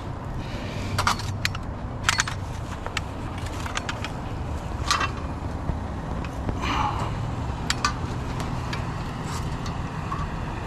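A vehicle engine idling steadily, with scattered light clinks and knocks of hard items being handled, several of them ringing briefly.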